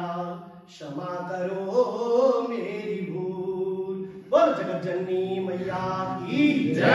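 A man singing solo without accompaniment, in a slow chant-like melody with long held notes.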